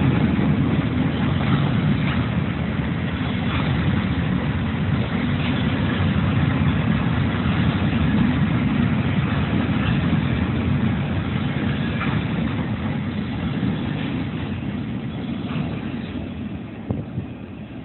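Freight train's hopper cars rolling past: a steady low rumble of steel wheels on rail with a few knocks, fading over the last few seconds as the end of the train goes by.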